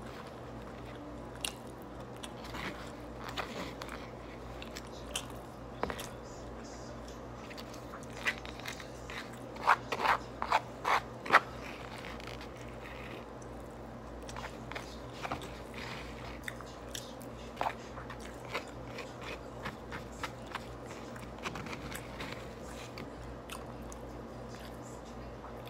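Close-miked eating: chewing, with a plastic utensil clicking and scraping against a foam bowl. A run of five or six louder scrapes comes about ten seconds in as the bowl is tipped and scraped.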